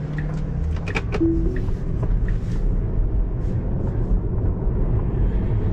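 Steady low tyre and road rumble inside a Tesla Model 3's cabin as it drives. Background music is heard over it in the first second or two.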